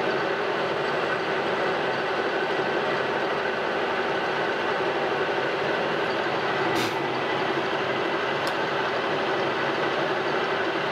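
Metal lathe running steadily with a steady hum and whine while the carbide tool takes a light finishing pass on brass needle-valve stock. There are two short clicks in the second half.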